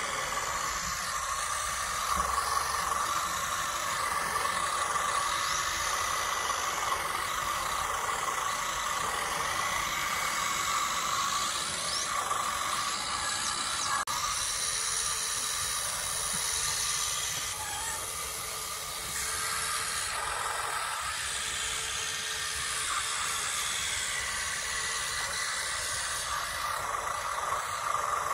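Radio-controlled scale tractors pushing soil with their front blades. Their onboard sound units play a steady, hissy simulated diesel engine sound through small speakers, over the whine of the electric drives. The sound dips briefly a little past the middle.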